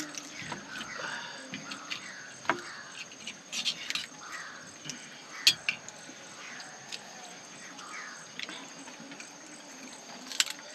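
Mouth sounds of someone eating grilled chicken with rice by hand: scattered wet chewing smacks and clicks, the sharpest about halfway through, over a steady high insect trill.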